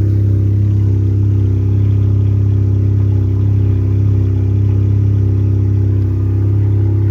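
Seat León 1.5 TSI four-cylinder turbo petrol engine idling steadily through a modified exhaust with the rear silencer cancelled by a straight section and an opened-up intermediate box: a loud, even low drone. It is running a little high and loud because the engine is still cold.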